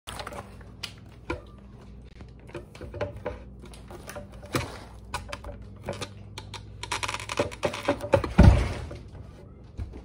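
Handling noise: a plastic bag crinkling, with scattered clicks and knocks, a longer burst of crinkling near the end, and one heavy thump about eight and a half seconds in, over a steady low hum.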